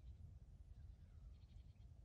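Near silence: faint outdoor ambience with a low steady rumble and a faint high chirp about a second and a half in.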